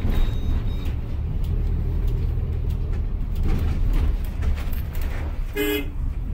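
Bus running on the road, heard from a front seat inside the cabin: a steady low engine and road rumble with light rattles. A short high-pitched tone sounds about five and a half seconds in.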